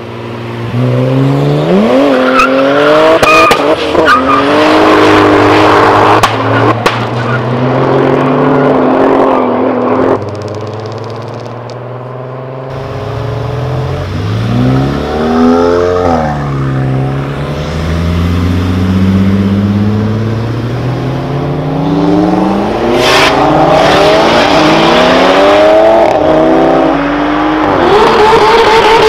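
Turbocharged VR6 engines swapped into Volkswagen Golfs revving and accelerating hard in several short clips one after another, the engine pitch climbing and dropping with each rev and gear change. A few sharp cracks sound through the engine noise near the start and again about three-quarters of the way through.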